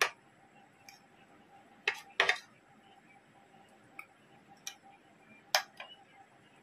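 Metal spoon and fork clinking and scraping against a ceramic plate while eating. There is a sharp clink at the start, a cluster of louder clinks and a scrape about two seconds in, another clink about five and a half seconds in, and lighter ticks between them.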